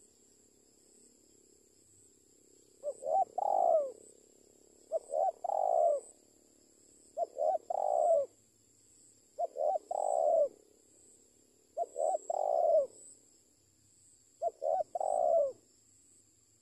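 Spotted dove cooing: six call phrases about two seconds apart, each a couple of short notes followed by a longer, falling coo.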